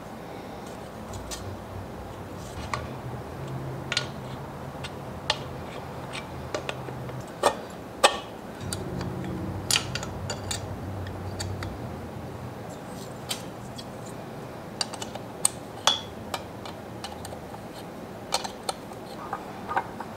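Small hard objects and hand tools clicking and knocking on a workbench as they are handled and set down, irregularly, with two louder knocks about seven and eight seconds in.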